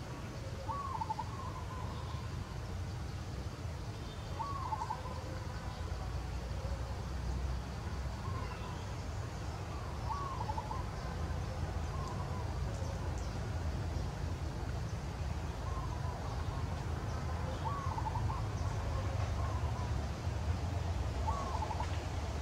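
A bird calling in short, repeated phrases every few seconds, over a steady low rumble.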